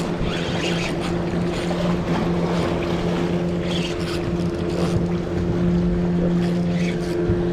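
A boat's engine running at a steady pitch, with wind on the microphone and water washing against the rocks.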